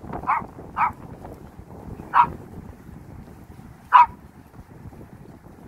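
Small dog barking on a leash: four short single barks spaced out over a few seconds, the last two louder.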